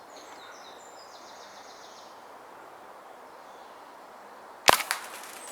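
A single shot from a Walther Rotex RM8 .22 pre-charged air rifle about four and a half seconds in: one sharp crack with a short tail. Before it, steady outdoor background with small birds chirping during the first two seconds.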